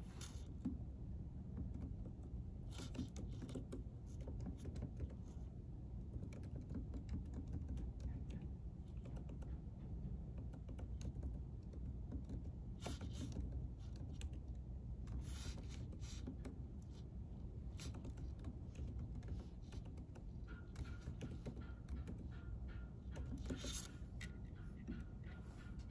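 Typing on a computer keyboard in scattered bursts of clicks over a steady low background hum.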